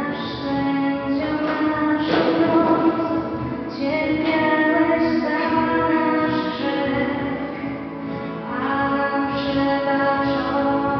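Slow music: a singing voice holding long notes over instruments, the chords changing every second or two.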